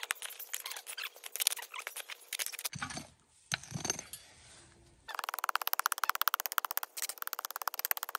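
Small hand shovel digging into dry, stony soil: rapid gritty scrapes and crunches, with a short break about three seconds in.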